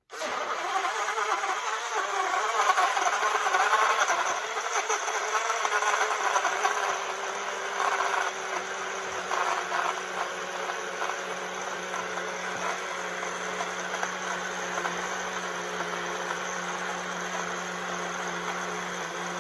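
BlendJet 2 portable blender running a blend of milk and chunks of fruit. It is louder and rougher for the first several seconds, then settles into a steadier whir.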